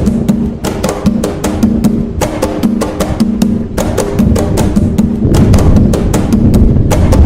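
Atabaque hand drums playing the nagô rhythm (toque nagô): a fast, steady pattern of sharp hand strikes over a ringing drum tone. Heavier bass strokes come in about four seconds in.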